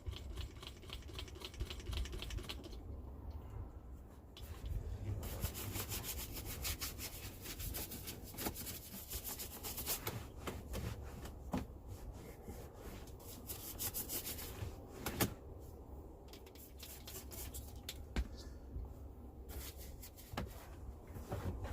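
Detailing brush scrubbing over a truck cab's interior surfaces in rapid strokes to dust them off, stopping and starting again several times.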